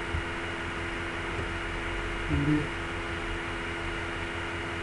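Steady electrical hum with a background hiss on the recording, and one brief low pitched sound a little past the middle.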